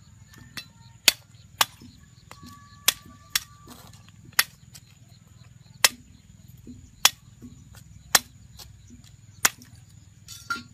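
A series of about ten sharp knocks, spaced unevenly about a second apart, over a faint steady high tone.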